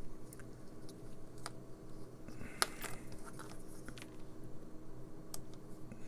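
Scattered light clicks and taps of small parts and tools being handled on a workbench, one sharper click about two and a half seconds in, over a faint steady electrical hum.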